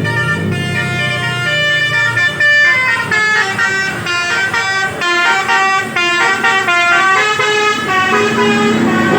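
Basuri multi-tone musical bus horn ('telolet') playing a fast tune of short notes that step up and down, several tones sounding together.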